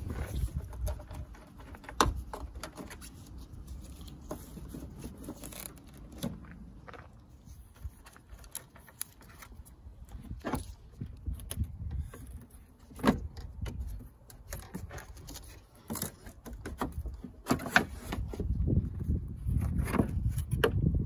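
Hand work on a car's plastic scuttle tray under the wiper trim: a Torx bit on its screws and the hard plastic panel being worked loose and pulled out, giving scattered clicks, knocks and scraping.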